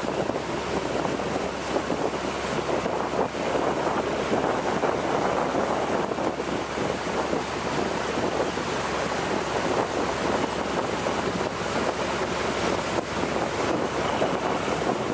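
Steady rush of wind buffeting the microphone and water streaming past the hull of a wooden longtail boat under way.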